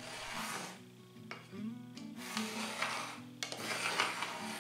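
Pencil scratching on plywood, tracing around the inside of a toilet seat's opening, in three long strokes.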